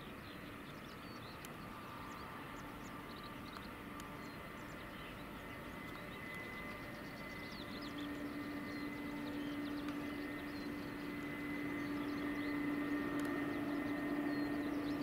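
Boeing 767 jet engines at taxi power: a steady low hum and a higher whine, growing louder from about halfway through. Faint bird chirps sound over it.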